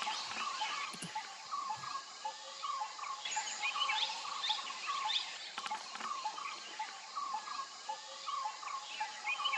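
Outdoor birdsong: several small birds chirping and calling, one repeating a short note about twice a second.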